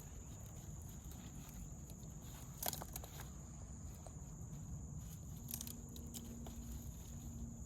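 Faint, steady, high-pitched insect trill, likely crickets, over a low outdoor rumble. A few soft clicks and rustles break in, the clearest about 2.7 seconds in.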